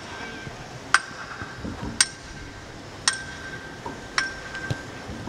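Sharp knocks, each with a brief metallic ring, repeating evenly about once a second, four times.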